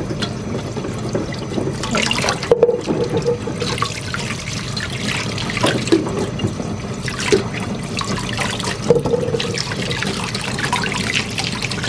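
Tap water running into a stainless steel bowl of chestnuts while hands rub and stir them to wash them, the water splashing steadily, with scattered clicks and knocks of the nuts being handled.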